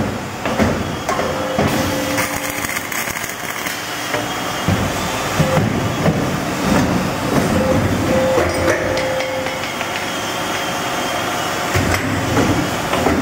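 Double J hook making and welding machine running: steady mechanical clatter with repeated knocks as its forming tooling works the wire.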